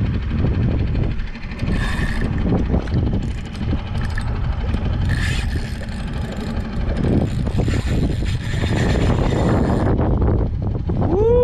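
Small outboard motor on a solo skiff running steadily while towing a hooked jack, under wind buffeting the chest-mounted microphone and water washing along the hull. A short rising-and-falling tone near the end.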